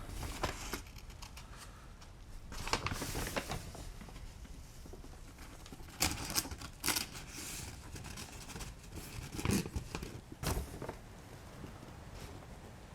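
Paper rustling and crinkling as an old written document is handled, in scattered short bursts with pauses between.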